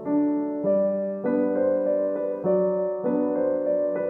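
Background music: a gentle piano melody, with a new note or chord about every half second.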